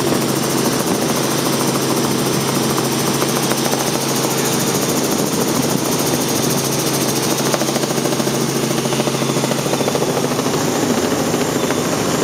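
Robinson R44 helicopter in flight, heard from inside the cabin: its Lycoming six-cylinder piston engine and rotors make a loud, steady drone with a constant low hum.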